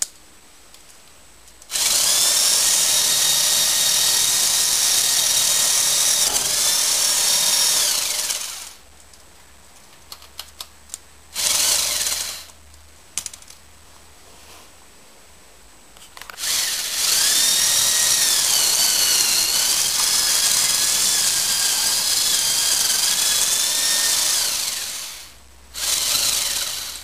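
Motorised Lego model chainsaw running with a high electric whine. It runs in two long spells of six to eight seconds and two short bursts, and its pitch sags briefly now and then. A few small clicks come between the runs.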